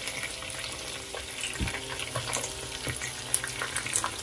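Sauce of gochujang and freshly added chicken stock sizzling softly in a hot pan, with a few light clicks of a utensil against the pan.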